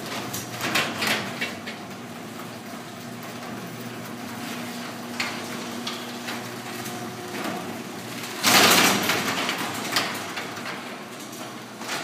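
Old sectional garage door running down its tracks with a continuous rattle and a low steady hum, and scattered clicks. About two-thirds of the way through comes a loud bang, the popping of the door, caused by a sagging centre section that catches on the way down.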